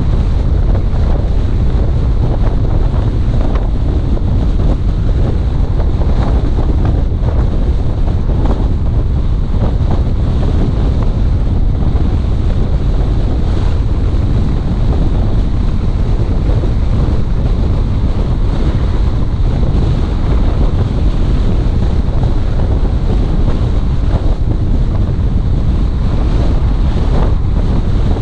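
Wind buffeting the microphone: a loud, steady low rumble with constant gusty flutter.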